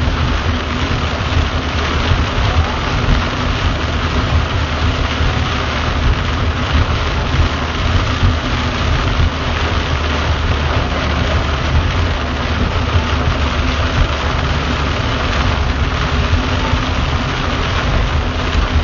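Heavy rain falling on a car's windshield and body, heard from inside the cabin, over the steady low rumble of the car driving on a wet road.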